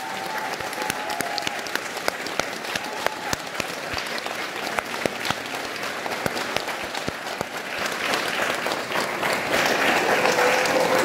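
Audience applauding, with single claps standing out, and a brief held call over it near the start and again near the end.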